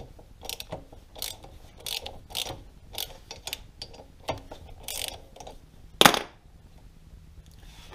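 Socket ratchet clicking in short bursts as it loosens a 12 mm banjo bolt on an ATV's rear brake caliper, with one loud sharp metal clack about six seconds in.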